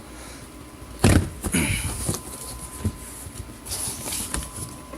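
Cardboard shipping box being handled and opened: a sharp thud about a second in, then rustling and scraping, with a few smaller knocks and rustles later.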